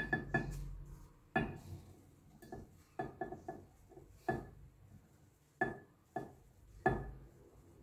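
Irregular clinks and taps, about ten in all, of a spatula knocking against the bowl and the bowl against a glass blender jar as flour is scraped out into the jar.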